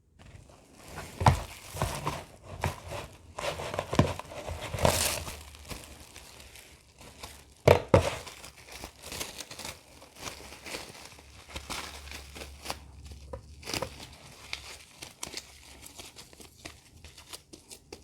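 Plastic cling film crinkling and crackling as it is pulled, torn and wrapped around a portion of pounded yam, with several sharper, louder snaps scattered through.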